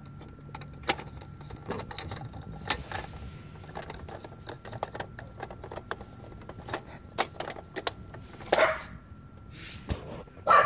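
Plastic clicks and clacks of a children's pop-up toy, its buttons and lids snapping as they are pawed and pressed at an uneven pace. Two louder noisy bursts come about eight and a half seconds in and at the very end.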